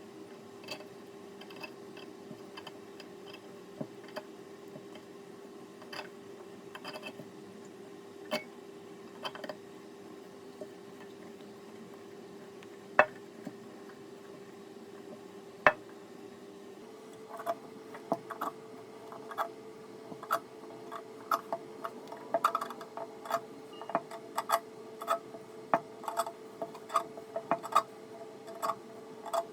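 Scattered sharp clicks and light metallic taps over a steady low hum. The taps come much more often in the last third, at about the same moment the hum steps up slightly in pitch.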